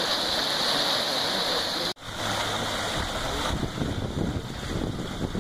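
Steady rushing, hissing noise of a boiling Yellowstone hot spring churning and steaming. About two seconds in it cuts to a steaming mud pot, with a lower, uneven rumbling noise.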